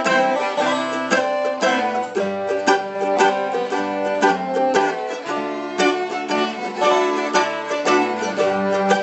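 Background music played on plucked acoustic string instruments, picked notes in a quick, steady stream.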